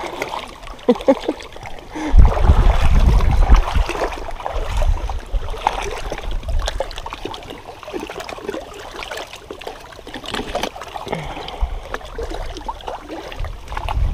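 Wind rumbling on the microphone, loudest a couple of seconds in, over lapping lake water, with scattered clicks, rustles and small splashes from handling gear and stepping on the rocky shore.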